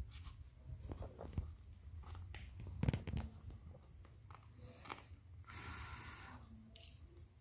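Fingers handling and pressing a rubber sandal sole and its loose piece, making small clicks and scrapes, with a sharper knock about three seconds in and a brief rubbing hiss near the six-second mark.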